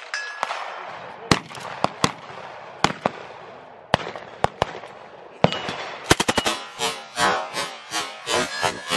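Separate single gunshots at about one-second spacing, then, about six seconds in, rapid automatic fire from a suppressed M240 Bravo 7.62 mm belt-fed machine gun, going on in quick bursts.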